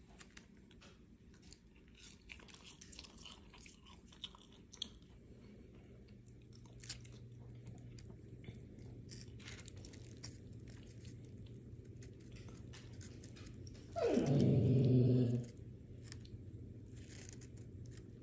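Close-up chewing and crunching while eating French fries, with many small clicks and rustles of the paper food wrapper. A steady low hum comes in about six seconds in, and a loud low humming sound lasts about a second and a half near the end.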